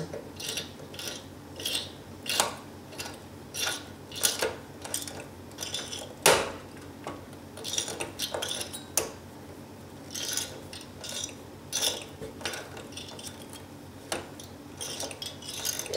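Screwdriver and metal fasteners clicking and clinking as a stock Intel CPU cooler is fastened down onto a motherboard: a string of irregular sharp clicks, with one louder knock about six seconds in.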